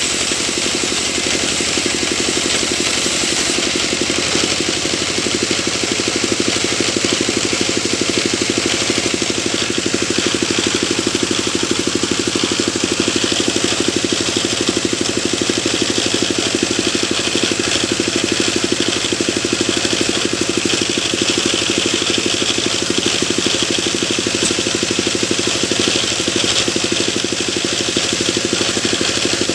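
Sawmill machine running steadily, with a continuous engine drone and a higher rushing hiss that gets stronger about ten seconds in.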